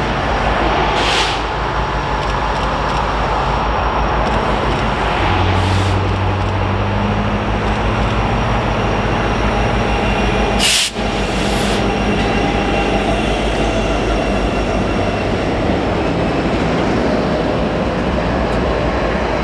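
BNSF freight train rolling past with a steady rumble of cars on the rails; a low diesel hum joins about five seconds in, and there is a single sharp click about eleven seconds in.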